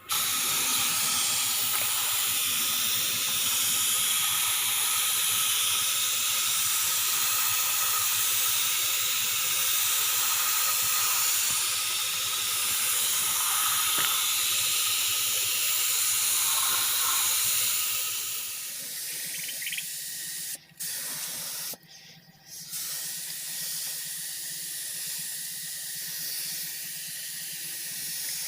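Hiss of paint being sprayed onto a car body: a steady spray for about eighteen seconds, then a quieter hiss broken by a few short gaps.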